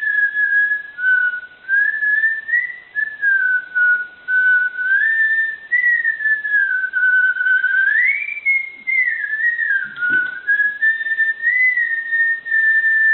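A slow melody whistled with a clear, pure tone, in phrases that glide smoothly up and down, with short pauses between them.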